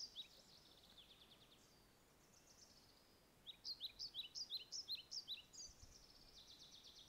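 Small songbirds singing faintly: a quick run of high chirps, about six a second, in the middle, with softer trills before and after.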